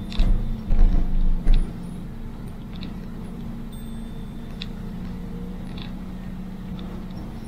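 Car engine and road noise from a vehicle driving downhill on a mountain road, a steady drone, with several low thumps in the first second and a half.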